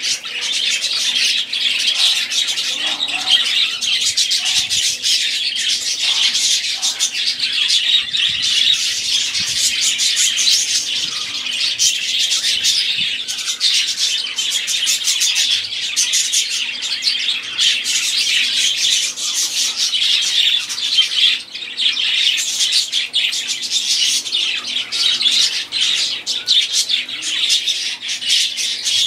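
Budgerigars chattering and warbling without a break, a dense stream of rapid, high chirps and calls.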